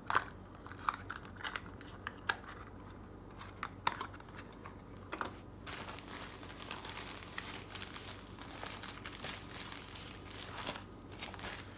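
Packaging being handled while parts are unpacked from a mail-order box: scattered clicks and small knocks, then continuous crinkling and rustling from about six seconds in.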